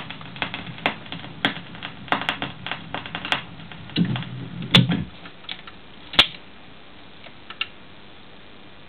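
Record turntable at the end of a side: irregular clicks and pops from the stylus, then low mechanical clunks about four to five seconds in as the tonearm lifts and swings back to its rest. A sharp click follows, then a few last ticks, leaving a faint steady hiss.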